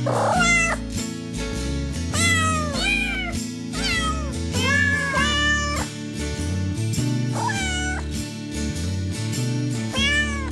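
A series of short cat meows, each rising and falling in pitch, over background music with steady chords.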